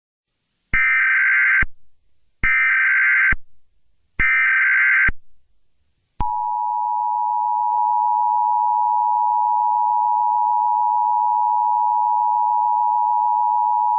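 Emergency Alert System tones: three short bursts of SAME header data tones, each just under a second long, then the steady two-tone EAS attention signal, which begins about six seconds in.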